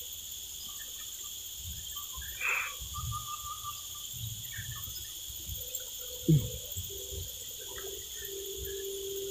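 Steady high-pitched drone of insects, with a short, loud falling sound about six seconds in and a steady low tone starting near the end.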